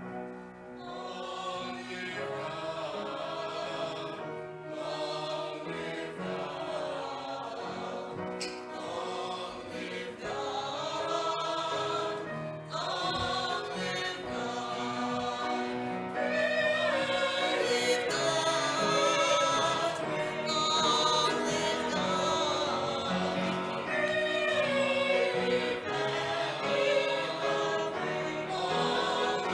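A group of voices singing a hymn together over sustained instrumental accompaniment, growing louder a little past halfway.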